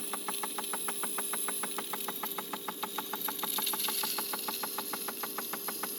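Ninja espresso machine running its steam wand for milk frothing: the pump pulses rapidly and evenly, about eight times a second, under a steady hum and a high steam hiss.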